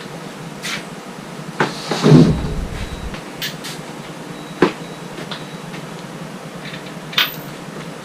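Metal hand tools being handled: a few sharp clinks and knocks, with a heavier clattering thud about two seconds in, as sockets and a torque wrench are picked out.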